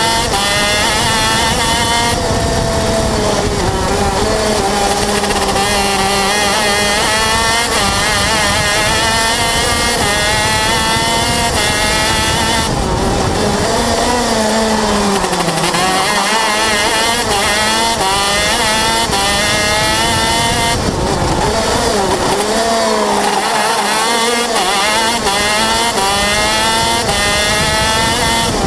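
A 125 cc two-stroke KZ shifter kart engine at racing speed, heard close up from the onboard camera. Its pitch climbs and falls over and over as it accelerates out of corners and slows for them, with deeper drops about halfway through and again about three quarters of the way in.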